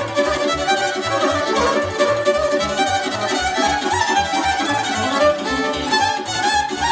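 Romanian wedding band playing instrumental folk dance music for a circle dance: a fiddle leads the quick melody over a steady, driving bass beat.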